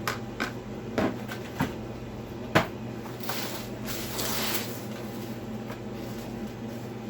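Cardboard box and packaging being handled: a few sharp knocks, the loudest about two and a half seconds in, then a rustling scrape lasting about a second and a half.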